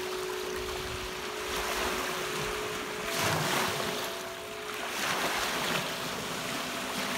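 Crystal singing bowls ringing with long, steady held tones, a higher bowl joining about three seconds in. Lake waves wash and break on the shore underneath, swelling louder several times, with some wind on the microphone.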